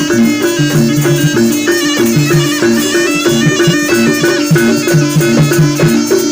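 Javanese jaranan ensemble music: a reedy shawm (slompret) plays a wavering melody over rapidly repeating gong-chime and metallophone notes and drumming.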